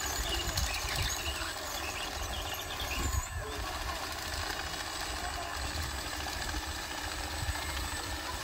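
Remote-control crawler bulldozer running as it pushes dirt, a steady mechanical engine-like noise.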